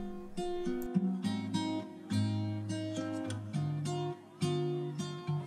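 Background music: an acoustic guitar playing a plucked melody.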